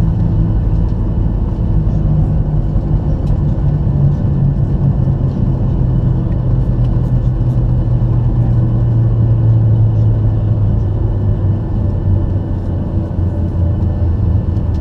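Cabin noise of a Boeing 737-800 with CFM56-7B jet engines: a loud, steady rumble of engines and airflow, under a low hum that slowly sinks in pitch through the second half.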